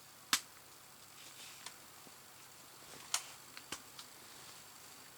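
A few short, light clicks and taps from handling: one sharp click about a third of a second in, then a couple more around three seconds in, over faint room hiss.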